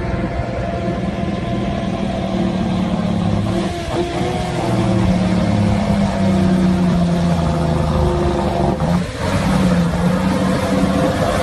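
Diesel engine of an old bonneted Mercedes-Benz six-wheel tanker truck driving over soft sand dunes, pulling steadily with its pitch shifting as it goes, and dipping briefly about nine seconds in.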